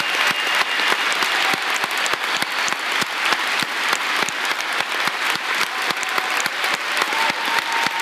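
Large crowd applauding, steady sustained clapping.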